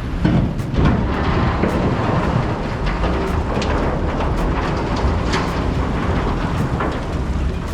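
Bridge erection boat engine running with a steady low rumble under a rushing noise, with scattered short sharp knocks throughout.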